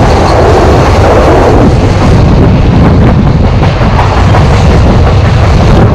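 Wind buffeting a microphone held out of a moving passenger train's coach window, over the steady rumble of the coaches running on the track. The rush sounds fuller for the first second and a half while the coach passes close to a rock face.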